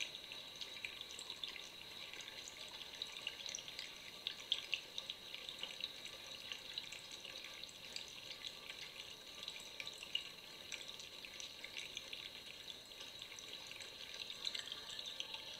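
Water trickling steadily, with many small drips and splashes.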